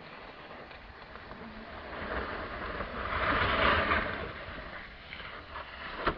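Snowboard sliding and scraping over packed snow, a hissing rush that swells to its loudest in the middle and then fades, over a low rumble of wind on the microphone. One sharp knock just before the end.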